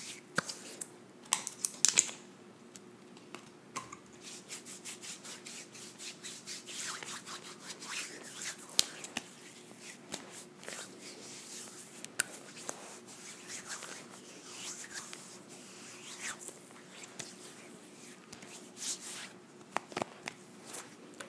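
Hands rubbing moisturizing cream into the skin close to the microphone, a soft rustle with many small sticky crackles and clicks.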